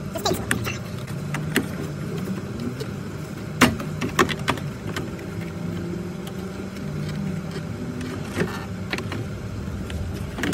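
Plastic radiator fan shroud being worked loose and shifted in an engine bay: scattered clicks and knocks of hard plastic, the sharpest about three and a half seconds in, over a steady low rumble.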